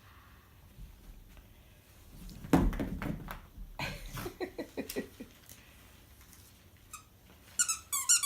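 A dog at play: a thump about two and a half seconds in, then a run of short whines and grumbles, and a few quick high squeaks near the end.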